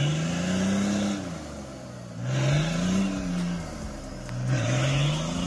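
Nissan Patrol's engine revving three times as it pushes through deep mud with its rear diff locker engaged. Each rev rises in pitch, holds and drops away, with a rush of spinning tyres throwing mud.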